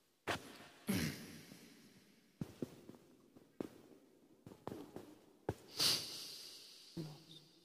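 A string of about a dozen short, breathy human sounds, like sniffs, coughs and throat-clearing, at irregular intervals. Each leaves a brief echo in the hall. The loudest comes about six seconds in.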